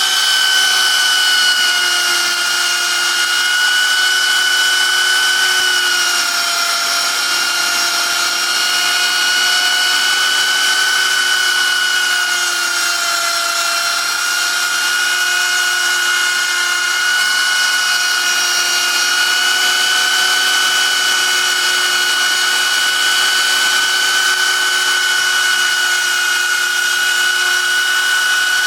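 DIY CNC router's spindle motor running with a steady high-pitched whine while the bit engraves, its pitch dipping slightly from time to time as the cut loads it.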